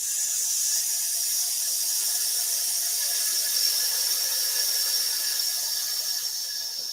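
A person breathing out the lung sound of the Taoist Six Healing Sounds: one long, steady "sss" hiss through the teeth, held through one slow exhalation.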